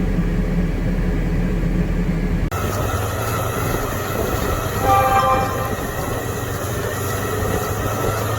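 An engine running steadily. About two and a half seconds in it cuts abruptly to a louder, noisier machine sound, with a brief steady tone near the middle.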